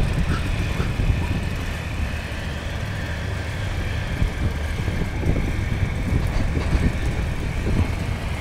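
Tugboat's diesel engine running steadily: a continuous low rumble with a faint steady whine above it.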